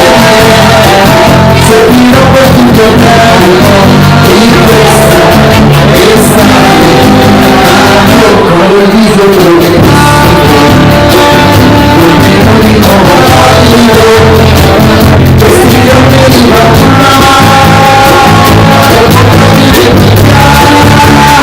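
A live band playing with a singer, recorded on a mobile phone: loud and distorted throughout, with a steady bass line under held, wavering vocal notes.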